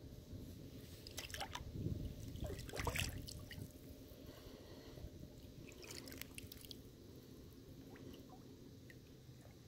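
Water dripping and splashing against a kayak, a scatter of small drips and plinks. It is busiest and loudest about two to three seconds in, then thins to occasional drips.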